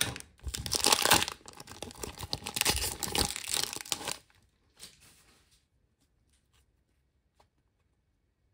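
Trading-card pack wrapper being torn open and crinkled, with rapid ripping and rustling for about four seconds. After that only a few faint taps as the cards are handled.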